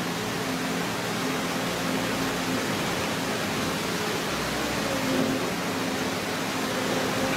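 A steady rushing noise, with the faint hum of a spider excavator's engine and hydraulics working underneath it, coming and going and shifting a little in pitch.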